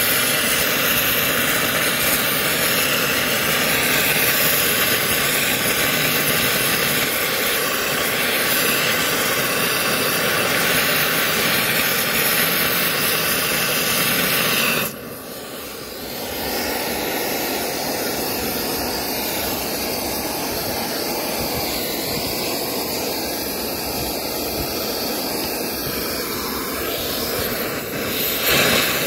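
Oxy-fuel gas cutting torch flame hissing steadily against a seized screw in a concrete railway sleeper. The hiss drops off briefly about halfway through, then carries on a little quieter.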